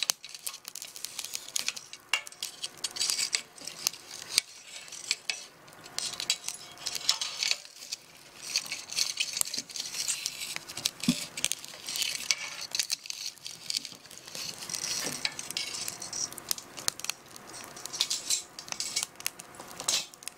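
Metal spatula clinking and scraping in a pan as food is stirred, a quick irregular run of small metallic clicks.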